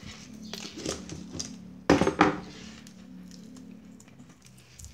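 Handling noise from a small circuit board and its plastic cable connectors: light clicks and rattles in the first second, then a louder knock about two seconds in, over a faint steady low hum.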